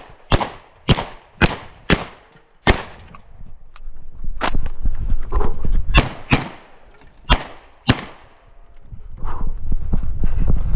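Shotgun fired about ten times during a practical shooting stage. Five shots come roughly half a second apart, and after a pause of under two seconds five more follow over the next few seconds, each shot sharp with a short echo.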